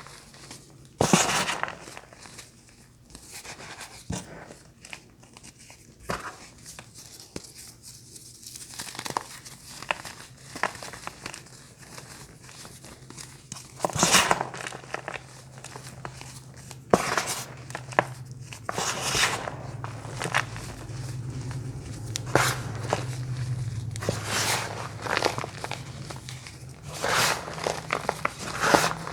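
Crunchy bars and their packaging crinkling, tearing and crunching in irregular bursts, with sharp loud crunches now and then. A low steady hum joins about halfway through.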